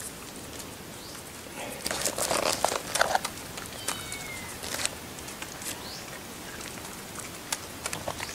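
Bursts of rustling and scuffling, loudest about two to three seconds in, with a few scattered clicks, and a bird giving a short falling chirp about four seconds in.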